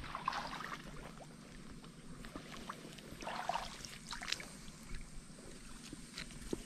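Light splashing and rustling of water, in two short bursts: one just after the start and one about three seconds in, with a few faint clicks between.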